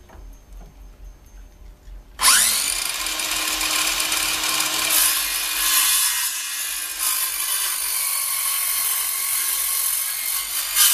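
Bosch 18-volt cordless circular saw whirring up about two seconds in, then running steadily as the blade cuts a depth-set notch kerf across a 2x4 leg.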